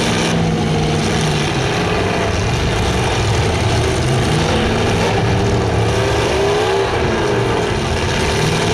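Engines of several demolition derby cars running hard and revving at once, loud and continuous, their pitch rising and falling about six seconds in.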